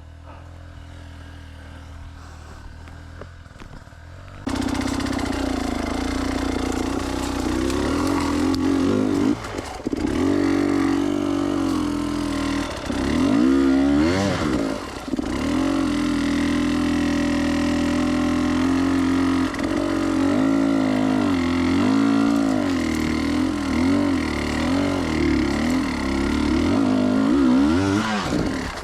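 Enduro dirt bike engine running quietly at first. About four and a half seconds in it suddenly gets loud and revs hard and unevenly, its pitch rising and falling again and again.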